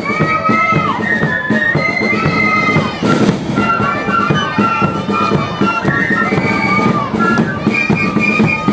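Marching flute band playing a tune, flute melody over rattling side drums and bass drum beats.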